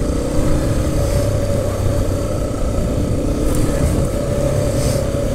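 Yamaha trail bike's single-cylinder four-stroke engine running steadily at low revs as it rides a rough grass track, heard close up from the rider's own bike.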